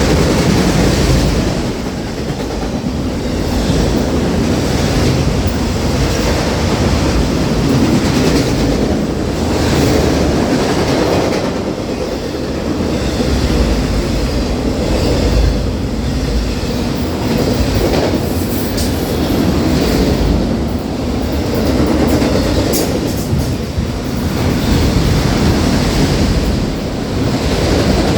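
CN autorack freight train rolling past, a steady rumble with wheels clacking over the rail joints, its loudness swelling and dipping every few seconds.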